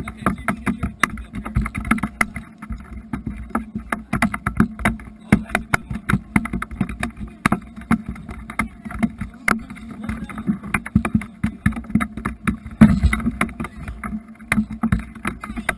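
Water slapping against a small boat's hull, with a constant irregular run of knocks and bumps and one heavier thump about 13 seconds in.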